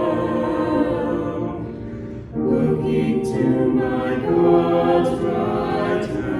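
Choir singing in held notes, apparently unaccompanied. The sound dips briefly about two seconds in, then comes back fuller.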